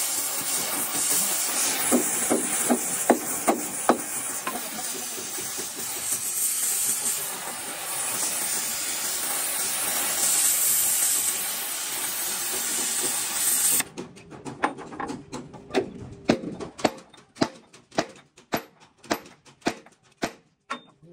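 A steady hiss for about fourteen seconds, with a few sharp knocks in it, cuts off suddenly. A run of separate sharp taps or knocks follows.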